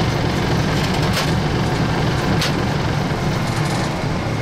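DE 1429's English Electric diesel engine running steadily, heard from inside the locomotive cab, with two short hisses about one and two and a half seconds in.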